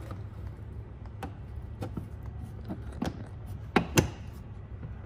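Scattered light clicks and taps of a plastic rock guard being pressed against the fender and seated into its mounting tabs in the wheel arch, the two loudest close together about four seconds in. A steady low hum runs underneath.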